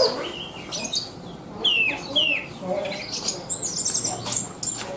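An anis (Geokichla thrush) singing in a vigorous, varied song of separate whistled notes. It includes a pair of sharp falling whistles and, near the end, a quick run of very high notes.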